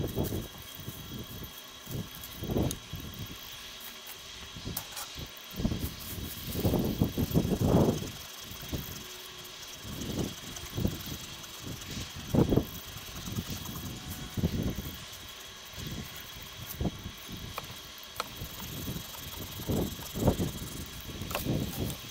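Wind gusting over the microphone in irregular low rumbles, over a faint steady outdoor hiss.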